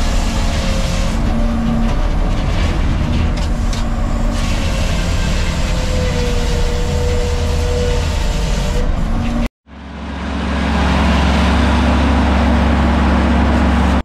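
Circle sawmill machinery running steadily, heard from inside the sawyer's cab, with a faint tone that drifts a little in pitch. After a sudden break about two-thirds in, the mill's diesel power unit runs with a steady, deep drone.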